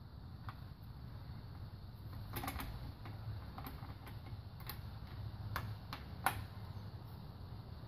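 Irregular sharp metallic clicks from a breaker bar and socket being worked on the cylinder head bolts of a Toyota 1ZZ-FE engine as they are angle-tightened, with a quick run of three clicks a few seconds in and the sharpest about six seconds in.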